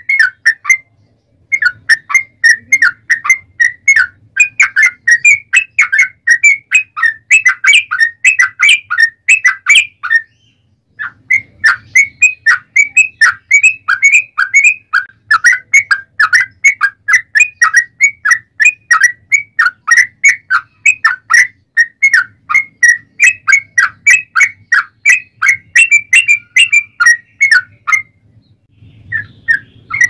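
Yellow-vented bulbul (trucukan) song: a long, fast run of clear whistled notes, several a second, the kind of continuous 'ropel panjang' song that keepers call a fighting song. The run breaks off briefly about a second in, again around ten seconds in, and near the end.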